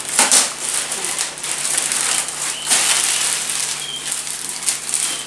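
Clear plastic bag rustling and crinkling as it is pulled up and off an espresso machine, with sharper crackles among the steady rustle.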